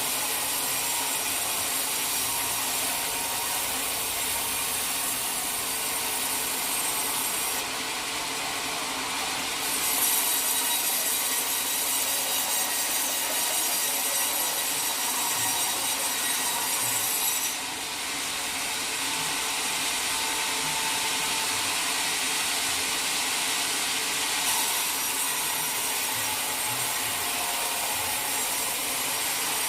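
A powered sawmill saw cuts lengthwise through a teak log with a steady, hissing sawing noise. Its highest, sharpest part eases off twice, once about eight seconds in and again for several seconds from about eighteen seconds in, then returns.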